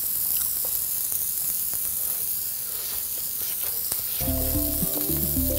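Eggs and sausage patties frying on a griddle, a steady sizzle. Background music with low stepped notes comes in about four seconds in.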